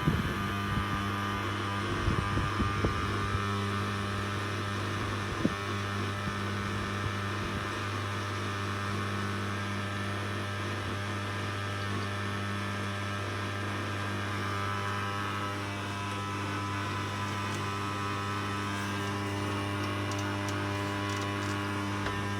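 Midea dishwasher running with a steady low hum and drone, the noise its owner complains of. A few brief knocks come in the first several seconds.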